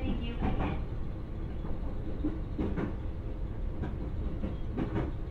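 Running noise inside an E531-series electric multiple unit motor car: a steady rumble of wheels on rail, with a few sharp clicks as the wheels pass over rail joints.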